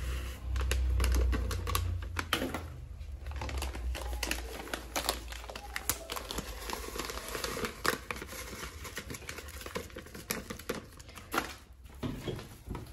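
Plastic packet of shredded coconut crinkling and rustling as it is squeezed and emptied into a pot, with many small crackles. A low rumble of handling noise in the first couple of seconds.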